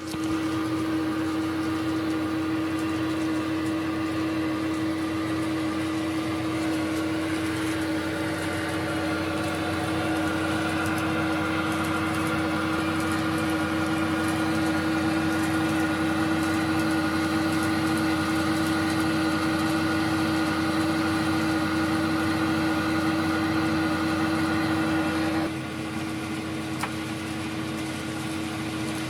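Diesel railcar engine sound effect of a KiHa 58 (DMH17H diesel) played by a KATO Sound Box through its speaker. It starts abruptly and runs steadily, then drops a little in level about 25 seconds in and carries on quieter.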